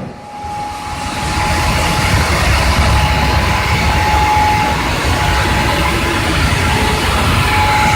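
Smeral LZK 1000 mechanical hot forging press running idle: its electric drive motor and flywheel give a steady rumble with a thin constant whine, building up over the first second or so and then holding steady, with no press strokes.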